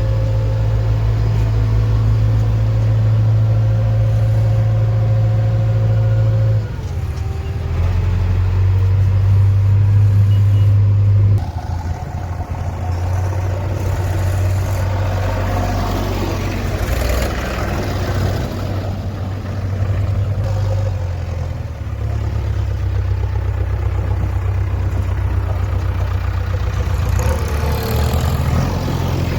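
Heavy diesel engine running steadily, its note shifting about six seconds in, again near twelve seconds, and once more near twenty-two seconds as the load or speed changes, with some clatter around the middle.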